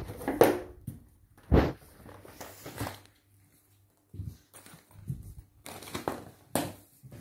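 Paperback books and exercise books falling like dominoes onto each other and a tiled floor: an irregular series of papery slaps and thuds, the loudest about half a second and a second and a half in.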